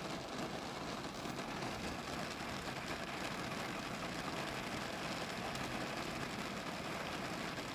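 Steady noise inside a stationary car in light rain: the engine idling, with rain on the windshield and body.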